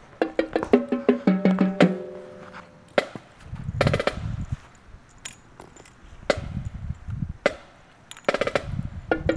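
Marching band percussion rehearsing: a mallet keyboard plays quick runs of pitched notes at the start and again at the end, with low timpani or bass drum rolls between them, punctuated by sharp drum hits.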